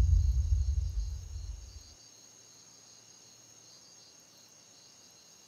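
A deep, low booming rumble dies away over the first two seconds, the kind of dramatic sting a show lays under a nomination. Faint, steady chirring of night insects follows.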